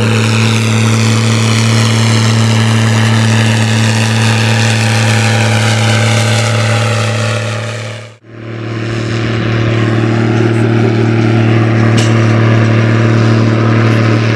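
Case IH 1455 XL tractor's six-cylinder diesel running steadily under load through a stainless-steel exhaust while pulling a tillage implement. The sound fades out and back in about eight seconds in.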